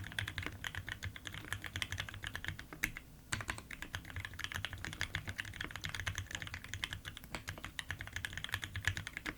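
Fast, steady typing on a Keycult No.2 mechanical keyboard with lubed Gateron Ink Black linear switches, a brass plate and GMK Metropolis doubleshot ABS keycaps: a dense run of keystroke clacks. There is a short pause about three seconds in, and the typing stops at the end.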